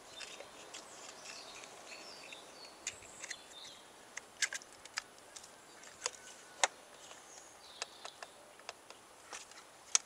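Scattered light plastic clicks and taps, a dozen or so, from a pencil ignition coil being pushed down into its spark-plug well and its wiring connector being handled and clipped on.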